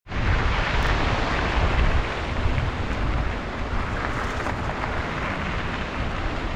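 Wind buffeting the microphone of a camera riding along on a gravel bike, a gusting low rumble, over a steady rushing hiss from whitewater rapids and tyres rolling on gravel.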